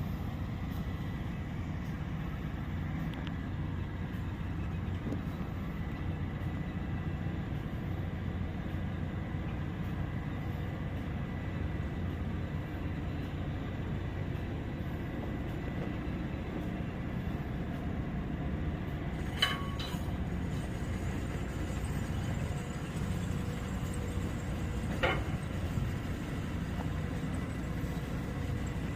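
Hitachi hydraulic excavator's diesel engine running steadily with a low rumble and a thin high whine. Two brief sharp sounds stand out, one about two-thirds of the way through and one a few seconds later.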